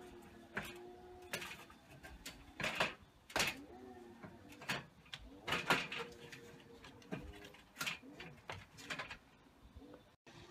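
Irregular knocks and clanks of an aluminium stepladder being set against a conservatory and climbed, about a dozen separate knocks, some ringing briefly.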